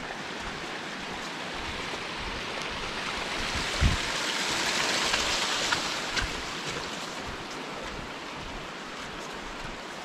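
Running water from a small stream beside the trail, growing louder toward the middle and fading again as it is passed. A few footsteps crunch on the gravel path.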